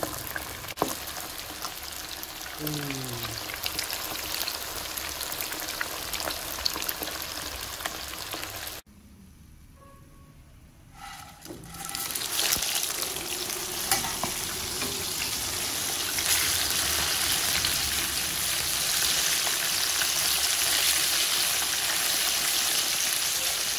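Floured catfish pieces deep-frying in hot oil in a wok: a steady crackling sizzle. It drops away briefly about nine seconds in, then comes back louder and denser for the second, hotter fry that crisps the pieces.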